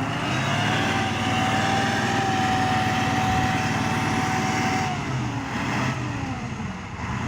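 Heavy machine's engine running hard, with a steady high whine that holds for about four seconds and then stops.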